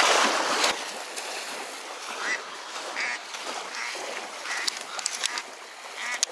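Water splashing loudly at first, then quieter swirling water with a scatter of short, honking duck quacks.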